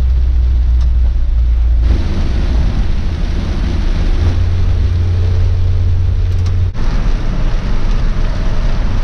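Mazda Miata's four-cylinder engine droning with tyre and road noise on a wet road, heard from inside the small open-top car's cabin. The sound shifts abruptly twice, about two seconds in and near seven seconds.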